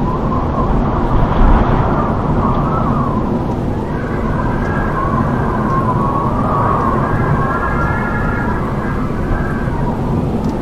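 Howling wind: a steady rushing roar with a whistling howl on top that rises and falls in pitch in several slow swells.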